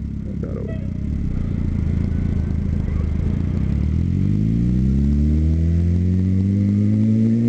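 Suzuki GSX-R750 motorcycle's inline-four engine running steadily at low revs, then rising smoothly in pitch over the last few seconds as the bike accelerates.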